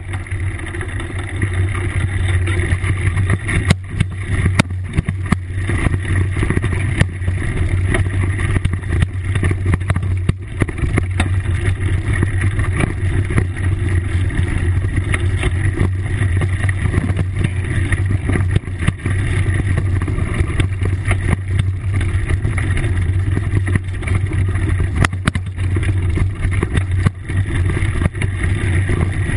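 Riding noise from a mountain bike rolling over rough grass and a dirt trail, heard on a camera carried on the bike: a steady low rumble of wind and vibration, with scattered knocks from bumps in the ground.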